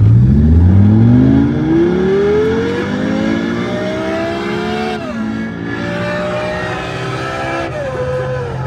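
Synthetic engine sound from the RevHeadz app, played through a Honda Civic's car stereo and heard inside the cabin. It climbs steadily in pitch as the car accelerates, drops sharply about five seconds in like a gear change, then drops again near the end.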